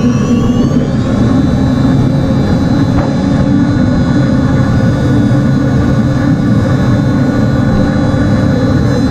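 Ship's machinery on a container ship's mooring deck running with a loud, steady low drone and several steady tones. A high whine rises in pitch during the first second, then holds steady.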